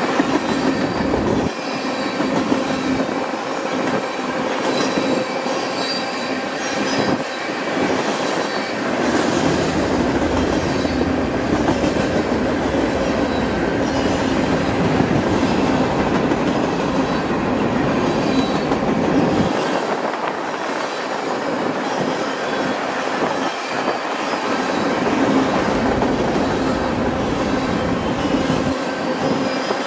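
A long freight train of tank cars, boxcars and covered hoppers rolling past close by: a steady rush of steel wheels on the rails, with faint high steady tones running over it.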